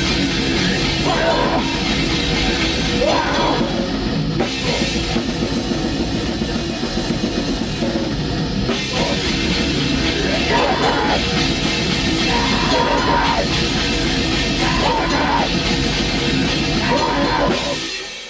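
Black metal band rehearsing: drum kit with distorted guitar and bass playing a dense, loud wall of sound that drops off sharply near the end.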